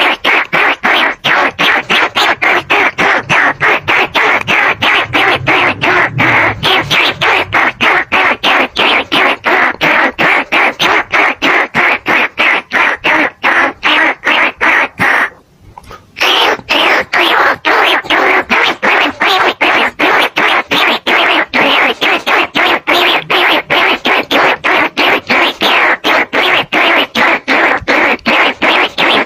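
Recorded lure call of bandicoot rats and rice-field rats: a fast run of short calls repeating several times a second, with a brief break about halfway through. This is a call played to draw rats to a trap.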